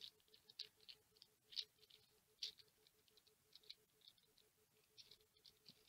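Faint, irregular creaks and scratchy ticks of a small screw being turned by hand, slowly back and forth, into a wooden servo mounting block, with a couple of louder scrapes; no cracking of the wood.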